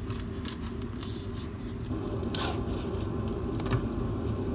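Camera packaging being handled: a few soft clicks and rustles over a steady low room hum, the clearest click about two and a half seconds in.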